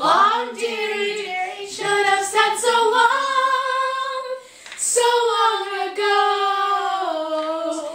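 A small group of teenagers singing together unaccompanied, drawing out long held notes, with a brief break about four and a half seconds in.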